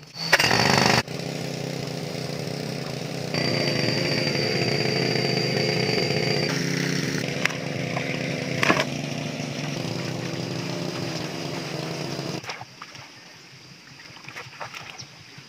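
Small petrol engine of a water pump running steadily, draining the lake. It starts after a brief loud rush about a second in and drops away about twelve seconds in, leaving only faint knocks.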